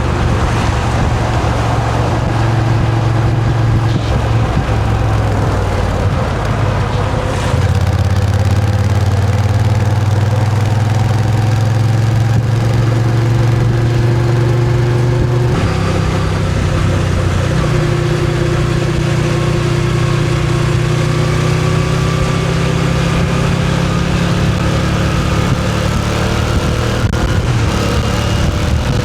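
Moto Guzzi V7's air-cooled transverse V-twin engine running while riding. The engine note shifts about seven seconds in and again about halfway, then climbs slowly in pitch as the bike gathers speed.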